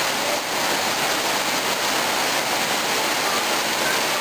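Steady rain falling, an even hiss of water that does not let up.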